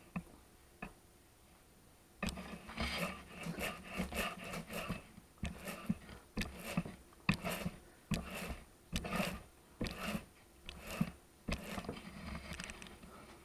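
Paint roller on an extension pole rolled back and forth in a paint tray to load it with paint: a wet rasping rub, about two strokes a second, starting about two seconds in.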